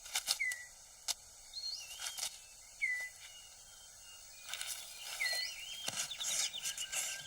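Short rustles and snaps of forest-floor litter as a male six-plumed bird of paradise clears his display ground. Behind them is forest ambience: a bird's short whistled call repeats about every two and a half seconds, and a high insect-like trill comes in near the end.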